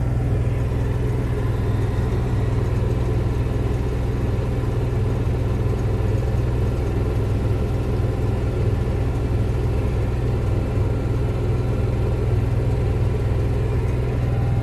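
Onan 5500 RV generator running steadily at its governed speed, a constant engine hum with a low rumble.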